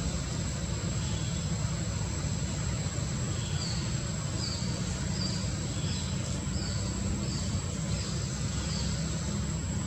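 Steady low rumbling background noise, with a run of short, high chirps repeating about twice a second through the second half.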